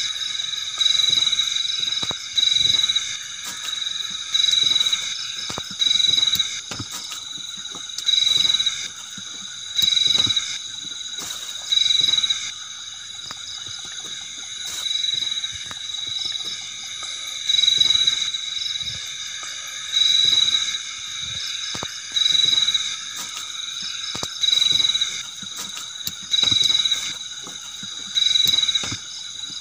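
Crickets chirping in a steady high-pitched chorus, with a louder trill about every two seconds.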